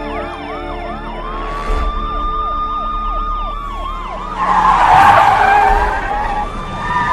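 Several police car sirens wailing and yelping over one another, some sweeping fast and one rising and falling slowly. From about four seconds in, a car's tyres screech loudly for a second and a half as it brakes hard.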